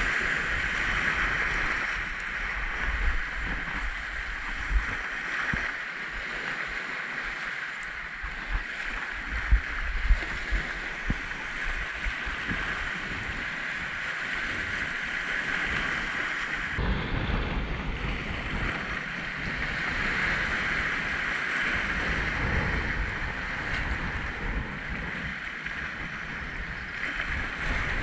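Sea waves washing and breaking against a rocky shore, with wind buffeting the microphone in gusts.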